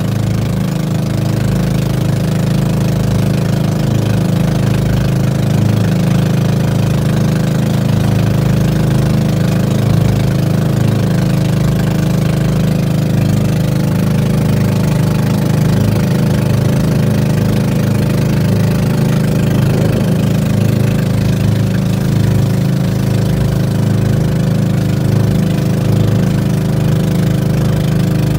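Small fishing boat's engine running steadily at a constant speed.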